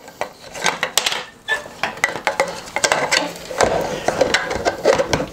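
3D-printed plastic parts clicking and knocking against the tube and the bench as they are fitted together by hand, with a stretch of scraping and rubbing in the second half.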